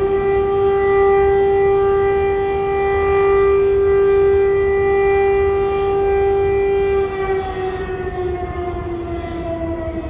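Air raid siren wailing over the city, holding one steady pitch with its overtones; about seven seconds in it starts slowly falling in pitch as it winds down. A low rumble runs underneath.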